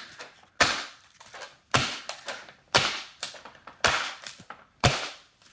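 A Chromebook on the floor being stomped on: five sharp cracking impacts, about one a second, with fainter clicks of the plastic between them.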